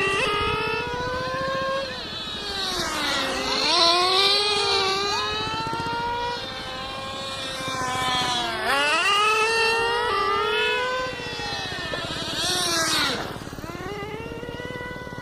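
Small nitro RC car engines revving high, loud, with a high-pitched whine. The pitch dips and climbs back up three times as the cars slow and accelerate again. It is somewhat quieter near the end.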